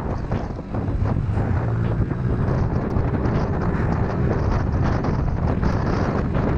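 Heavy wind buffeting on the microphone of a moving Honda Elite 80 scooter, with the scooter's engine and road noise running underneath.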